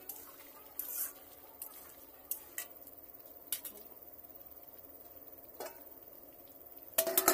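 Metal spatula scraping and clinking against a black iron kadai while chicken curry is stirred, in scattered separate knocks, with a louder clatter near the end.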